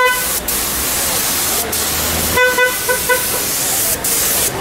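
Compressed-air paint spray gun hissing steadily as clear coat is sprayed onto a plastic bumper, cutting out briefly a few times between passes. A few short tooting tones sound at the start and again about two and a half seconds in.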